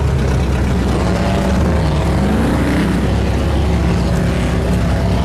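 Mud truck's engine running steadily, revving up and back down around the middle.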